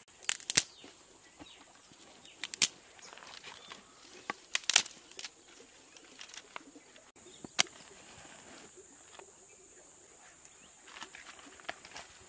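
Dry sticks and twigs snapping and clattering as firewood is broken and piled by hand, with a handful of sharp cracks scattered through, the loudest near the start and about five seconds in.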